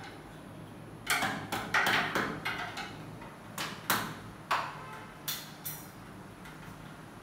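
Hammer tapping at the head of an aluminium window frame: a quick run of irregular, sharp metallic knocks, then a few single blows with a short ring, stopping a little before the end.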